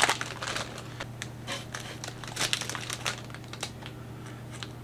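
Plastic fish-shipping bags crinkling and rustling as they are handled and unwrapped, in irregular crackles that are loudest right at the start.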